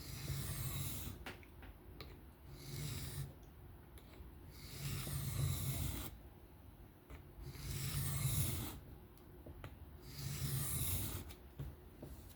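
An M390 steel knife blade stroked across a coarse whetstone in freehand sharpening: five long rasping passes, about one every two and a half seconds, while cleaning up a freshly set bevel.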